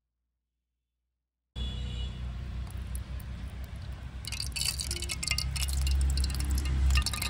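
Oil poured into a small hot metal wok over a wood fire, sizzling and crackling from about four seconds in. Underneath is a low rumble that starts suddenly a second and a half in.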